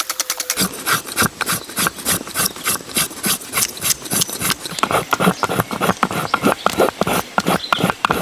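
Rapid, rhythmic strokes of a hand tool on wood or bamboo, several sharp strikes a second with scraping between them.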